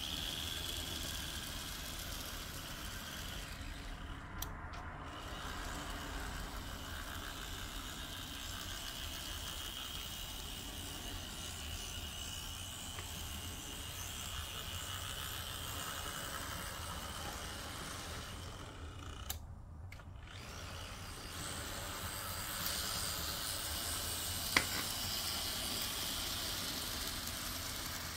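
Märklin Z scale BR 285 model diesel locomotive running on its track: its tiny electric motor gives a steady high-pitched whine that drifts slightly in pitch, over a haze of wheel and track noise, with a few sharp clicks.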